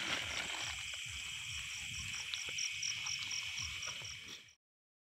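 Night chorus of crickets and other insects, a steady high trilling with a chirp pulsing about four times a second, over rustling and footfalls through grass. It cuts off suddenly about four and a half seconds in.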